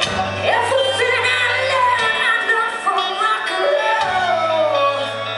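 Live rock band playing: a woman sings lead over electric guitars and bass, her voice sliding through long held notes. The steady bass note drops out for a couple of seconds in the middle, then comes back.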